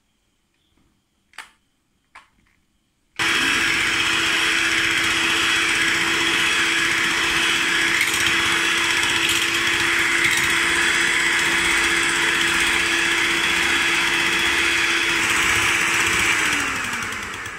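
Electric hand mixer switched on about three seconds in, its motor running at a steady whine as its beaters whisk eggs with salt into a batter. Near the end it is switched off and the whine falls away as the motor slows. A couple of faint clicks come before it starts.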